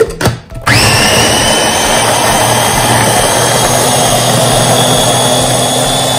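Small electric mini chopper grinding soaked chana dal with water into a paste: two knocks as the motor head is pressed onto the bowl, then the motor starts about a second in and runs loud and steady, its whine creeping slightly higher as it goes.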